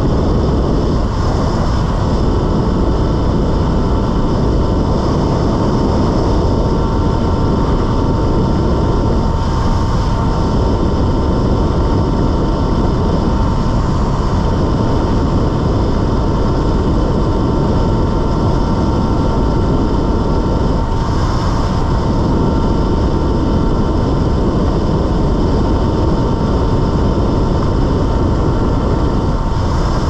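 Riding noise from a Talaria Sting electric dirt bike: steady wind rush on the microphone with a constant high whine over it.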